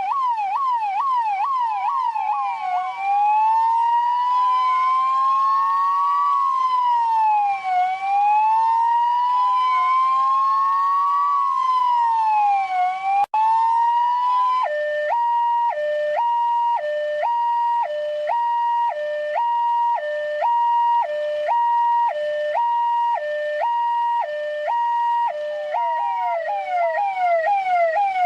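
Russian police car's electronic siren cycling through its modes. It starts with a fast yelp, changes about two and a half seconds in to a slow rising-and-falling wail, and switches about fifteen seconds in to a two-tone hi-lo alternating about once a second. Near the end it returns to the fast yelp.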